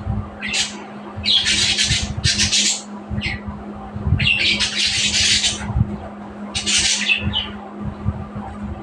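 Budgerigars squawking: a run of harsh, rasping screeches, some under a second long and some about a second, with short gaps between, over a steady low hum.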